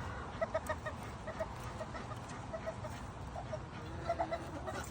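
Chickens clucking: a run of short, quick clucks, mostly in pairs, for about three seconds, then a few scattered ones with a brief cluster near the end.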